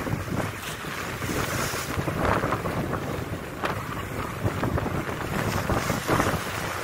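Wind buffeting the microphone over the rushing of water along the hull of a Beneteau Cyclades 39 sailing heeled over. The hiss of the bow wave swells louder a couple of times.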